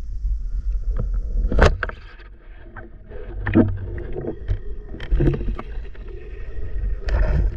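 Water splashing and sloshing with several sharp knocks, over a low rumble of wind on the microphone.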